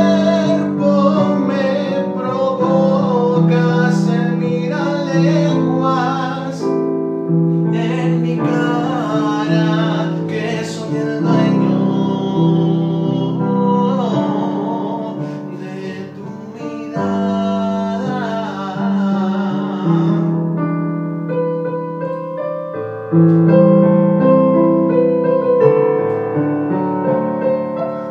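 A man singing a Spanish-language ballad over a piano backing track. His voice drops out about twenty seconds in and the piano carries on alone.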